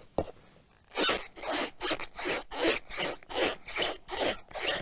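Foley being performed: a run of rasping, rubbing strokes, about three a second, starting about a second in after a single light knock.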